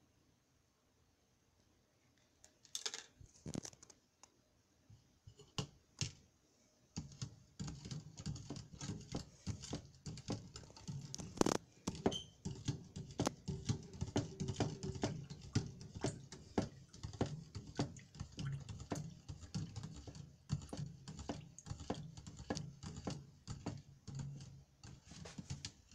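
A metal spoon stirring powdered pink lemonade mix into water in a plastic cup: a fast, steady run of clicks and scrapes against the cup from about seven seconds in, after a few separate clicks and rustles.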